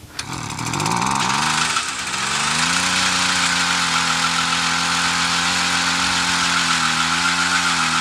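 Small gasoline engine revved up, its pitch climbing and wavering over the first two seconds, then held at steady high revs.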